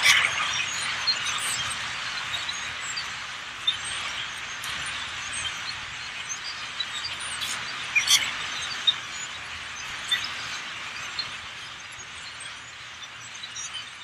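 A huge flock of birds calling all at once, a dense chattering din of countless overlapping chips and squeaks with a few sharper calls standing out. It fades slowly as the flock settles.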